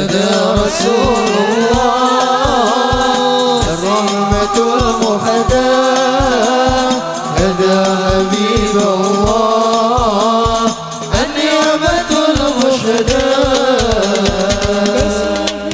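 Hadroh ensemble performing Arabic sholawat: men singing a long, drawn-out ornamented melody into microphones over a steady beat of rebana frame drums.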